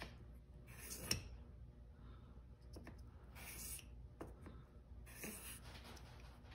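Faint scraping strokes of a steel single-bevel broadhead's blade rubbed flat on a sheet to take the burr off the back of the edge. There are three short strokes about two seconds apart, the first with a small click.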